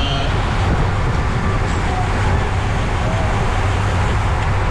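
Steady wind and road rush on a bike-mounted camera's microphone from a road bike riding at race speed, strongest in the low end.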